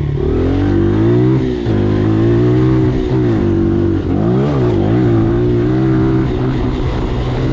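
Dirt bike engine running steadily, its revs rising and falling briefly several times.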